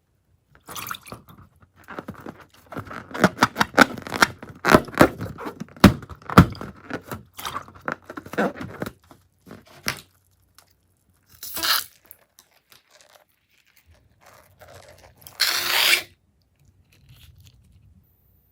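Slime being squeezed and worked by hand, crackling with a dense run of small popping clicks, then two short noisy bursts later on.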